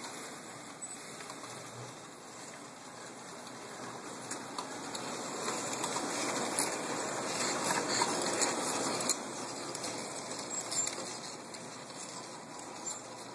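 Bachmann Emmett Kelly Jr. circus model train cars rolling past on the track: a steady rolling rumble with many small clicks and clatters from the wheels on the rails. It grows louder towards the middle and eases off near the end.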